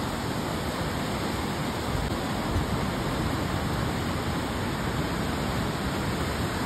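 Steady rushing noise of small sea waves washing onto a sandy beach.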